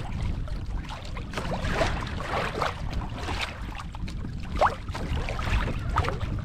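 Water sloshing and splashing against a kayak hull, in irregular small slaps and trickles over a steady low rumble of wind on the microphone.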